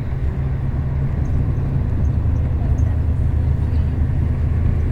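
Bus interior while moving: a steady low engine drone and road rumble, the engine note dropping to a lower pitch about a second and a half in.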